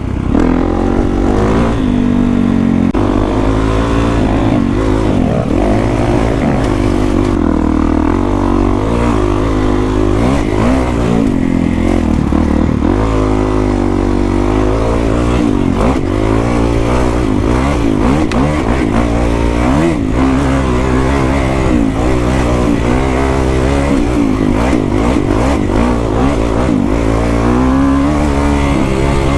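A 2021 Kawasaki KX450X's single-cylinder four-stroke engine, breathing through an FMF 4.1 RCT exhaust, is being ridden hard on a trail. Its pitch rises and falls without a break as the throttle opens and closes and the gears change.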